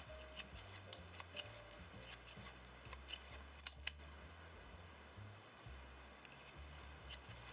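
Faint scattered clicks and light ticks of fingers and a plastic tatting shuttle working thread while tying double stitches, with two sharper clicks a little past the middle, over a low steady hum.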